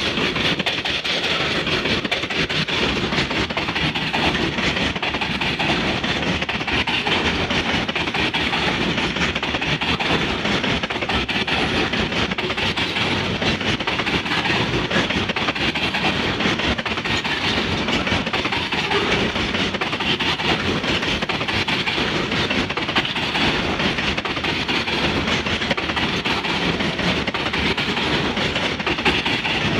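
Loaded coal hopper wagons of a freight train rolling past close by at about 45 km/h: a steady, unbroken clatter of wheels on the rails.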